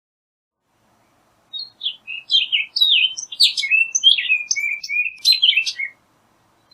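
Orchard oriole singing one rapid, jumbled phrase of varied whistled notes, lasting about four and a half seconds and starting about a second and a half in.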